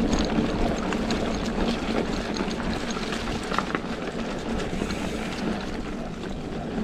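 Trek Slash mountain bike rolling along a dirt trail: a steady rush of tyre and wind noise with scattered clicks and rattles from the bike, easing off slightly toward the end.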